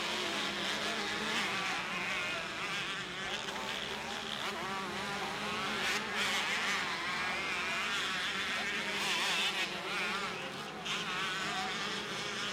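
Several two-stroke motocross bikes racing, their engines buzzing high and revving up and down as they overlap.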